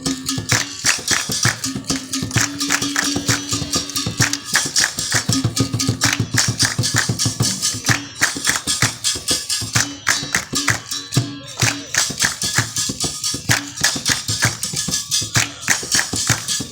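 Percussion-driven music: a quick, even beat of strikes with shaker-like rattling, and a held low note that comes and goes.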